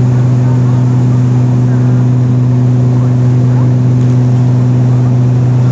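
Airliner cabin in flight: the steady, loud drone of the engines and airflow, with a constant low hum under an even rushing noise.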